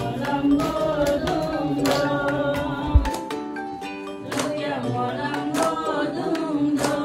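A group of people singing a worship hymn together, clapping along at about two claps a second. There is a single low thump about three seconds in.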